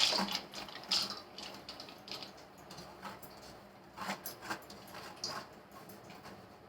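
Soaked, drained moong dal being tipped and spooned into a bowl: soft wet rustling and light clinks of utensil on the vessel, a few separate short sounds a second or so apart.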